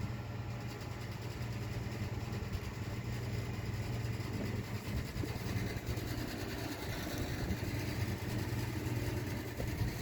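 Steady low machine hum, even throughout, like a motor running.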